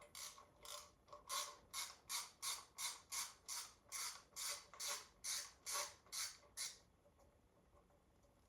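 Hand ratchet wrench worked back and forth on an engine bolt, giving an even run of ratcheting strokes, about three a second, that stops near the end.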